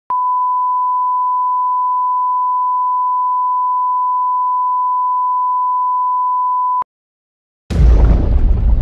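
Steady, single-pitched line-up test tone accompanying television colour bars, cutting off suddenly about seven seconds in. After a brief gap, a loud low rumble opens the station's intro music near the end.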